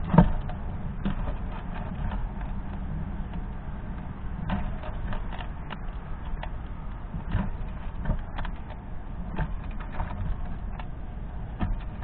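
A fox squirrel eating black sunflower seeds from a feeder tray: irregular small clicks and crunches as it rummages through the seeds and cracks the shells, with a louder cluster right at the start. A steady low rumble runs underneath.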